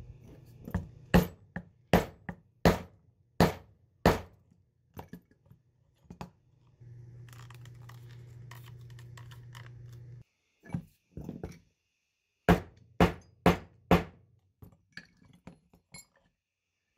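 A leatherworking maul striking a metal snap-setting tool, setting snap fasteners into a leather sheath strap. There are two runs of sharp knocks, about half a second apart, with lighter clicks of handling between them.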